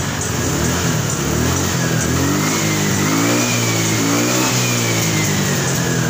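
Suzuki Spin automatic scooter's engine running, revved up twice and let back down, with a high whine rising and falling along with the revs.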